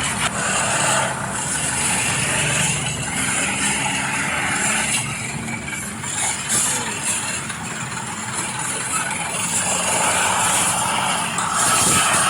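Radio-controlled scale excavator and bulldozer at work, a steady mechanical noise from their small motors and gearing.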